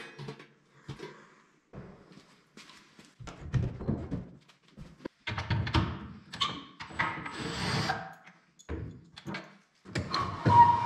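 Irregular knocks, clunks and rattles of a Makita sliding miter saw being handled and adjusted on its workbench.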